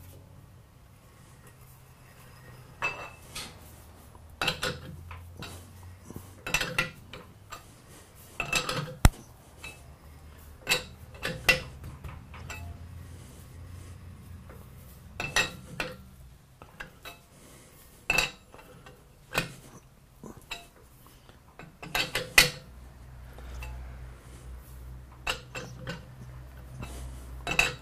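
Steel chuck key clinking and knocking in the jaws of a lathe's four-jaw chuck as the jaws are adjusted one by one to true up a bronze bearing against an indicator: irregular sharp metallic clinks with a short ring, every second or two, over a steady low hum.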